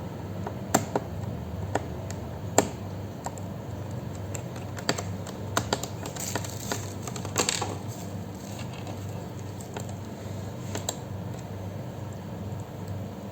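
Irregular light clicks and taps of a laptop's plastic being handled or its keys pressed, with a short rustle about six to eight seconds in.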